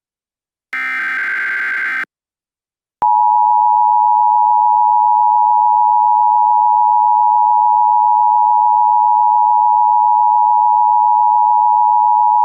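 Emergency Alert System tones: a short buzzy burst of SAME digital header data, then after a second's silence the EAS two-tone attention signal comes in about three seconds in and holds steady and loud. It is the signal that an emergency warning message is about to be read.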